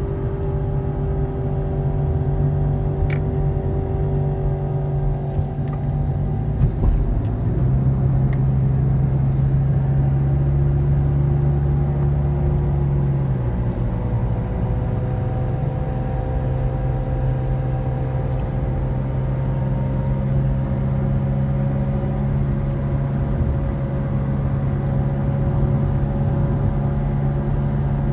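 Car engine and road noise heard from inside the cabin while driving. The engine's pitch glides slowly and steps twice, at about seven and thirteen seconds in.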